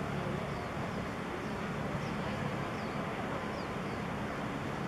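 Steady outdoor background noise with a faint low hum, and a string of faint, short high chirps.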